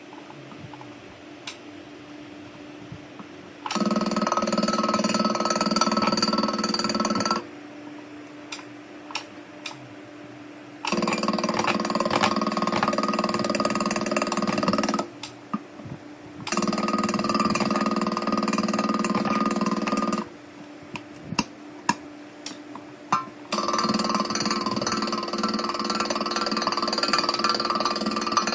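Welding machine rated at 1800 A humming steadily, with four loud bursts of welding of about three to five seconds each, separated by clicks in the pauses.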